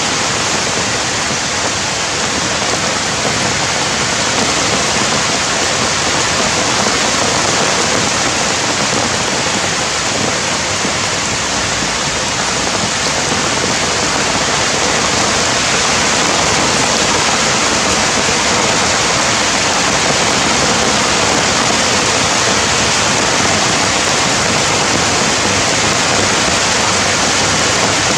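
Steady, even rushing noise of water, loud and unbroken.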